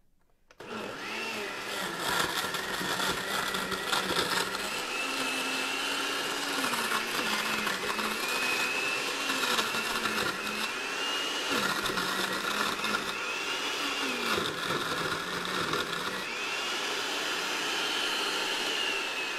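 Hamilton Beach countertop blender running on a smoothie of ice, mango, greens and almond milk, starting about half a second in. The motor's whine sags in pitch and recovers again and again as the blades work through the ice.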